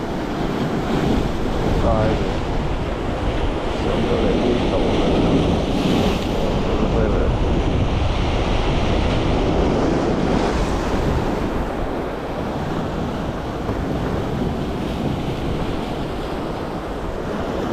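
Sea surf breaking and washing over shoreline rocks in a steady rush, with wind buffeting the microphone.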